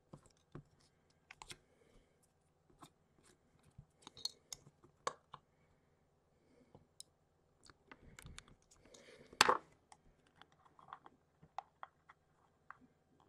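Craft knife blade trimming a thin white sheet on the work surface: scattered small clicks, ticks and scrapes, with one louder rustle and knock partway through as the piece is handled.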